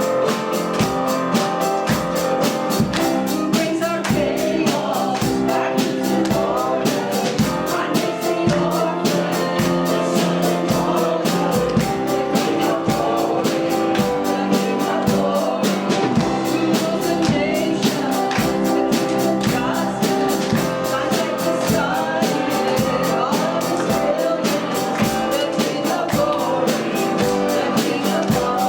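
Church worship song: voices singing over a band with guitar and drum kit keeping a steady beat.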